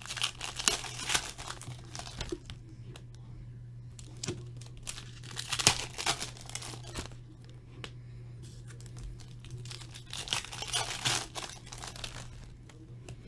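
Plastic wrapper of a hockey card pack crinkling as it is handled and torn open by hand, in three bursts a few seconds apart.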